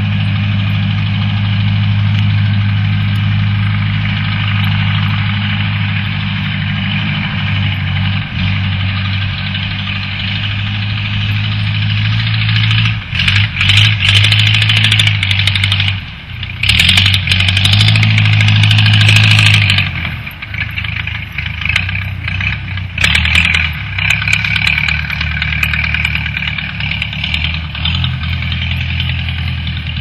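Case crawler bulldozer's diesel engine running steadily. It turns louder and harsher for a few seconds twice around the middle.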